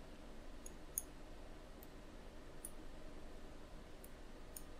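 A handful of faint computer mouse clicks at irregular intervals, over a low steady hum.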